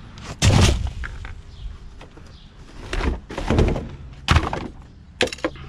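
Discarded junk being rummaged through and moved around: a few separate thunks and knocks, the loudest about half a second in.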